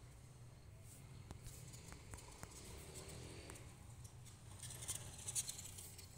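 Faint light taps and rustling from a phone being handled, over a low steady hum. A few thin clicks come in the first few seconds, and a louder rustle comes near the end.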